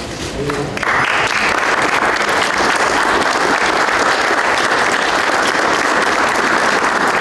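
An audience applauding. The clapping breaks out about a second in and carries on steadily.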